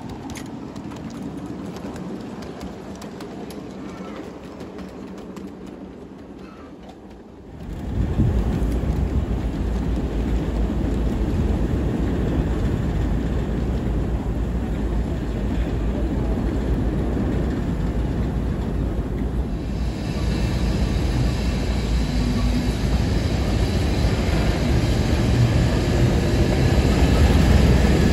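A heavy diesel locomotive engine running with a deep, steady rumble as a standard-gauge heritage train moves along the platform. It comes in suddenly about eight seconds in, after a quieter stretch. Near the end the engine note rises.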